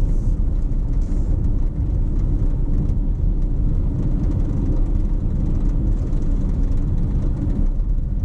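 Vehicle driving along a road: a steady low engine and road rumble.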